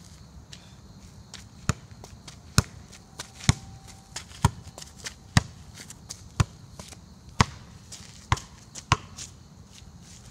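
Football juggled with the outside of the left foot: a series of sharp kicks, about one a second, nine touches, with the last two coming quicker before the touches stop.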